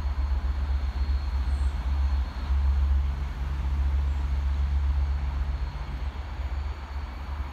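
Class 57 diesel locomotive's engine running in the distance, a steady low rumble with a faint steady engine note through the middle.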